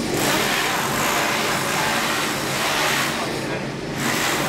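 Electric wall-rendering machine running on its mast: a steady mechanical hum under a loud hiss, the hiss dipping briefly about three and a half seconds in.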